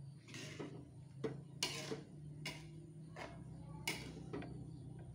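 A spatula stirring a soupy vegetable dish in a wok: a string of short knocks and scrapes against the pan, about seven in five seconds, over a low steady hum.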